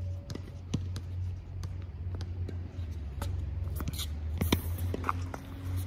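Steady low hum with scattered light ticks and taps, and one sharper click about four and a half seconds in.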